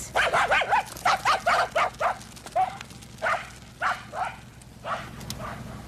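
Several dogs barking, a quick volley of barks in the first two seconds that thins to scattered single barks, over a low steady hum.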